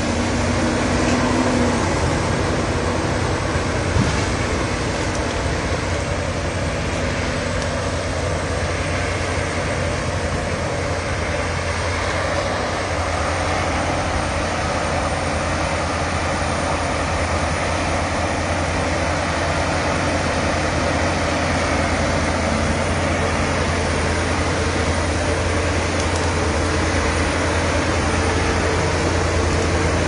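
A TG 120 crawler bulldozer's diesel engine runs steadily under load as the blade pushes a mound of earth, a deep even hum. There is a single brief knock about four seconds in.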